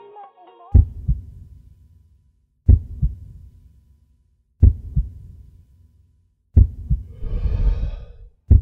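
Heartbeat sound effect: deep double thumps, a strong beat and a softer one, repeating slowly about every two seconds, five times. A breath is drawn between the last two heartbeats.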